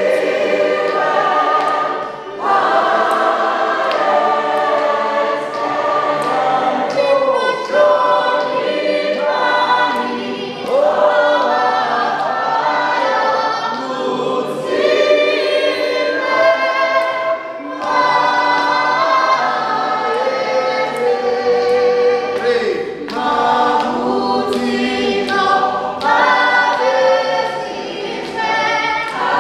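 A group of voices singing a gospel hymn together in harmony, unaccompanied.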